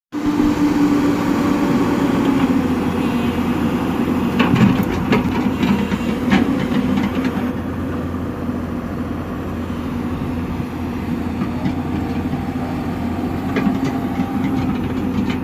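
Excavator's diesel engine running steadily, with several sharp knocks about four to seven seconds in and a couple more near the end.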